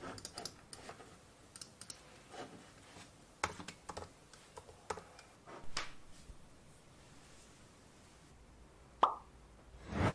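Scattered clicks of a computer mouse and keyboard, then about nine seconds in a short, sharp pop that drops quickly in pitch, followed by a dull thump near the end.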